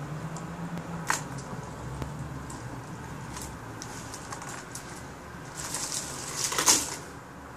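Clothes hanger being handled and worked on by hand: scattered clicks and taps, with a louder rattling clatter near the end, over a low steady hum.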